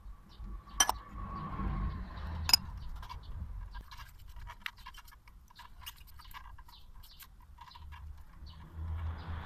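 Small clicks, taps and scrapes of metal brake pads and a motorcycle front brake caliper being handled and fitted, with two sharp clicks in the first three seconds.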